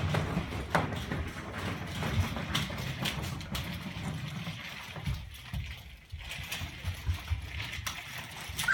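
Plastic wheels of toddlers' ride-on toys and a toy stroller rolling over a hardwood floor: a low rumble with scattered clicks and knocks.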